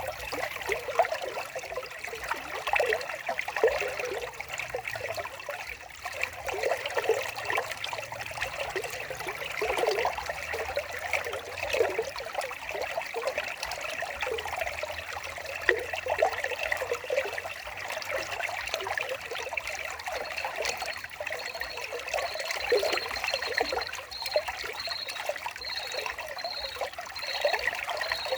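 Small stream of water trickling and babbling steadily. In the last third a high, evenly repeated chirping joins in.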